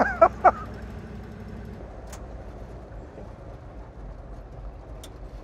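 Old pickup truck driving on a forest road, a steady low engine and road rumble. A short laugh comes right at the start.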